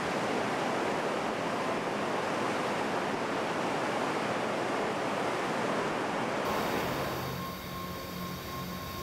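Dry dock flooding: water rushing and churning into the dock in a steady loud rush. About two-thirds of the way through it cuts to a quieter steady low hum with a thin high whine.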